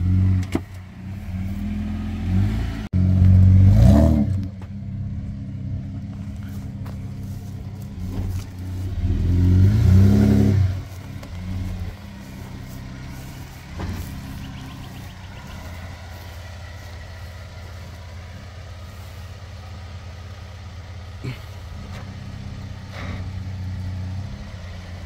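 Toyota Land Cruiser 80 Series engine running low and steady while it works through soft sand. It revs up in two long surges, about four and ten seconds in, then settles back to a steady low idle.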